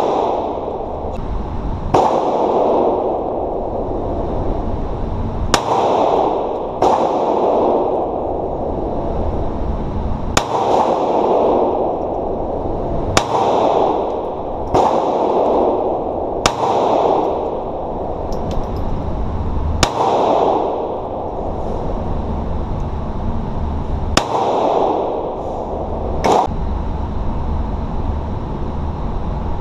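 Pistol shots on an indoor range, fired singly at uneven intervals of one to four seconds, about a dozen in all, each with a booming echo off the range walls.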